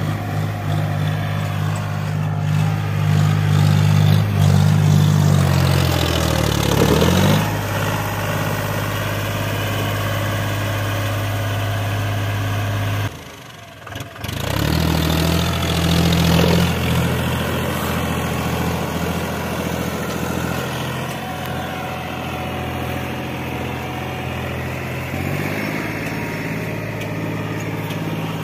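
A John Deere tractor's diesel engine runs steadily as it hauls a trailer heaped with soil. Its pitch sags about a quarter of the way in, and the sound breaks off for about a second near the middle before the engine returns.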